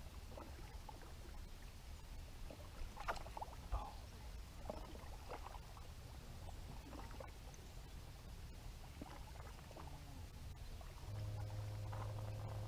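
Faint clicks and light knocks of fishing tackle on a boat deck. About eleven seconds in, a steady low electric hum starts, from the bow-mounted trolling motor running.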